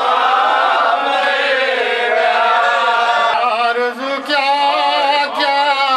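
A man chanting a nauha, an Urdu mourning elegy, solo and without instruments, in long held, wavering notes with a short breath break about two-thirds of the way through.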